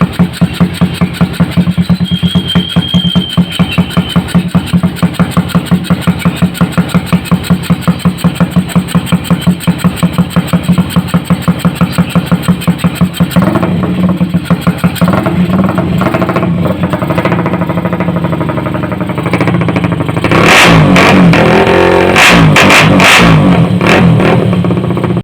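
Motorcycle engine through an aftermarket exhaust, idling with an even, rapid pulsing beat for about thirteen seconds. It then runs unevenly and is revved hard in several quick blips near the end.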